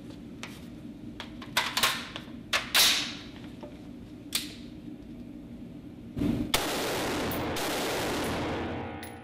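M4 carbine firing on an indoor range: a few sharp shots with echoing tails in the first few seconds, the loudest two about a second apart. From about six seconds in, a loud, steady, dense rush of sound sets in and fades near the end.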